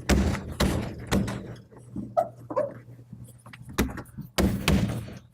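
A series of dull knocks and rubbing as a cord is pulled out from under the rubber lip of a truck's rear window weatherstrip and the glass is pressed in to seat the seal over the pinch weld. The knocks come in clusters, with a quieter spell in the middle.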